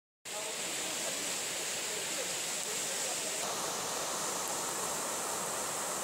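Steady rush of a forest creek and waterfall, an even hiss of running water, cutting in suddenly just after the start.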